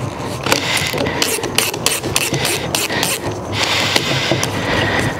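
Keyless chuck of a Makita drill being turned, its ratchet clicking in a rapid irregular series. The chuck is being backed far open and then tightened again to free jaws that would not close.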